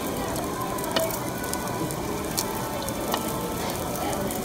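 Meat sizzling on a barbecue grill: a steady frying hiss dotted with small sharp pops and crackles of fat.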